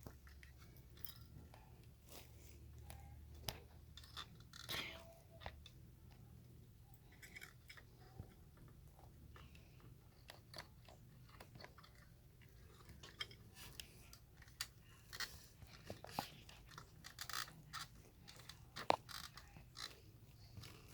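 Faint, scattered small clicks and crunches of electrical wires being handled and wire nuts twisted onto them while a doorbell transformer is connected, over a low steady hum.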